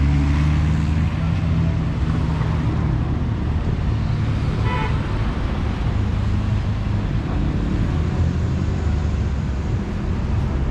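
Street traffic: cars driving past close by with steady engine and tyre noise, loudest as one passes at the start, and a short car horn toot about four and a half seconds in.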